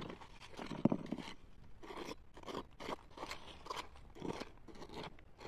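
Irregular crunching and scraping of gravel and stones being disturbed in a riverbed, about two strokes a second.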